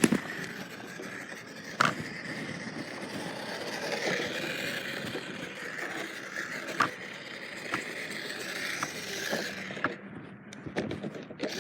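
Radio-controlled truck driving: a steady rolling, scraping noise from its tyres and motor, with a few sharp knocks, the clearest about two seconds in and again near seven seconds.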